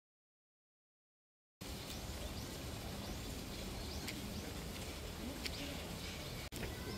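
Dead silence for about the first second and a half, then outdoor ambience: a steady background hiss with birds chirping over it, briefly cut out near the end.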